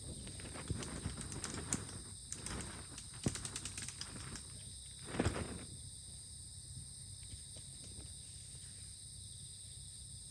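Insects trilling steadily in a continuous high chorus, with a few scattered knocks and rustles of handling in the first half.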